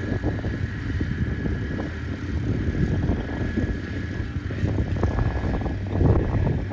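Wind buffeting the microphone as a gusty low rumble, with a faint steady high-pitched tone over it; a stronger gust comes near the end.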